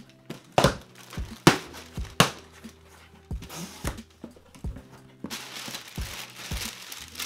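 A cardboard shipping box being opened by hand: a few sharp rips and knocks of tape and flaps in the first couple of seconds. About five seconds in, tissue paper starts crinkling steadily as it is pulled out of the box.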